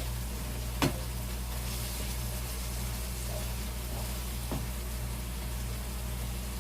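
Meat browning in a frying pan on the stove, sizzling steadily over a low hum. A sharp click comes about a second in and a softer one a few seconds later.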